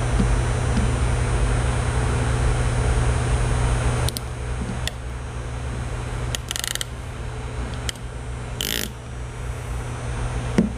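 A steady machine whir with a hum cuts off suddenly about four seconds in. After it come a few sharp clicks, then a quick run of ratchet clicks, typical of a Mac Tools ratcheting wire crimper closing on a splice.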